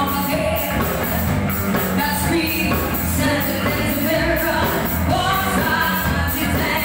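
Live pop-rock band playing a song: vocalists singing into microphones over electric guitars and a drum kit keeping a steady beat.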